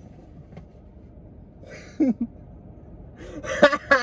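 Quiet background hum inside a parked car, a short voice sound about halfway, then a young man laughing near the end.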